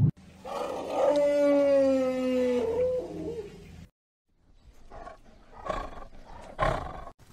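An animal's long call, pitched and falling slightly, lasting about three seconds. After a short silence come three short, breathy growls from a tiger.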